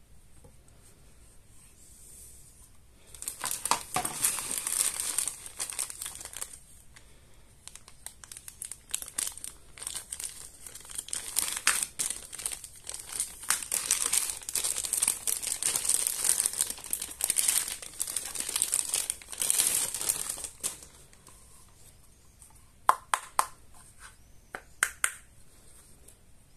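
Clear plastic packaging bags crinkling and rustling as they are handled and opened, from about three seconds in until a pause before the end. Then a few sharp clicks.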